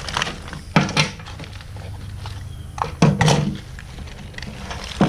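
A few knocks and clunks of objects being handled and set down while junk is sorted, with a steady low hum underneath.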